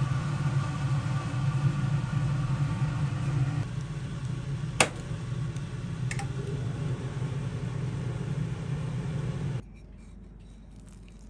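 A kitchen appliance's motor and fan hum steadily with a rushing noise, then cut off abruptly about nine and a half seconds in. There is a sharp click about five seconds in.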